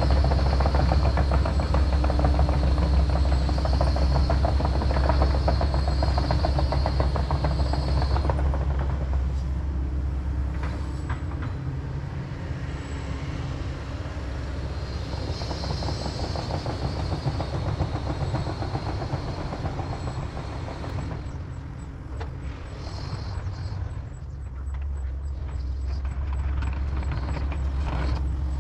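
Kobelco SK140 excavator's diesel engine running hard as it works, dropping to a quieter, lower run about ten seconds in and picking up again near the end.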